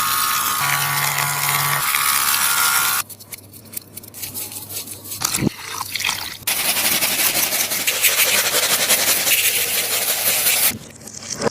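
A sticky taba squishy being pressed and pulled in the hands, giving a dense crackling, rubbing and peeling noise. It comes in two long stretches, with softer scattered clicks between them, and stops abruptly each time.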